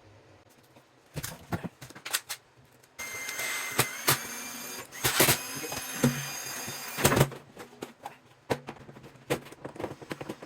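Sharp clicks and knocks of drawer hardware being handled, then a small power-tool motor whirring steadily for about five seconds with knocks in between, as a drawer is adjusted.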